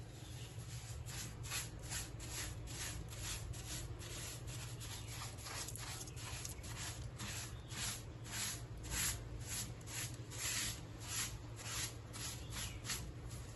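Repeated wiping strokes on the glass of a showcase, about two short, soft rubbing scrapes a second, irregular in strength.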